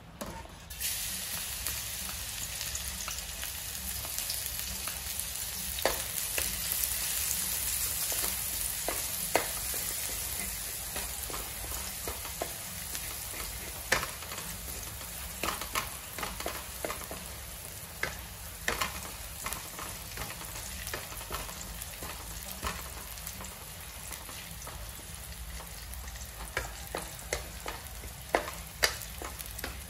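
Chopped garlic and spring onion sizzling in a metal wok, starting about a second in, stirred with a wooden spatula that clicks and scrapes against the pan.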